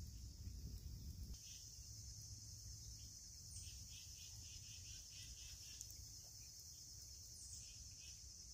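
Faint, steady high-pitched insect chirring in woodland, with a few short pulsing calls in the middle. A low rumble sits under it for the first second or so.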